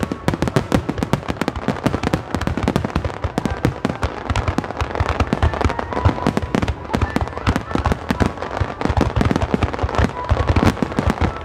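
Fireworks display at full intensity: a rapid, continuous barrage of overlapping bangs and crackles from many shells and mines bursting at once, with no pause.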